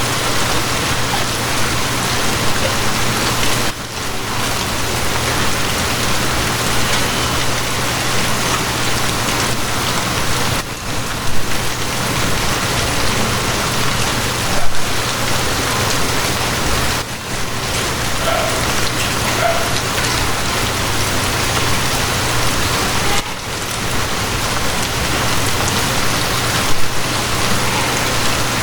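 Steady heavy rain pattering on a surface, over a low steady hum. The rain briefly dips about every six to seven seconds, and a few louder drops stand out.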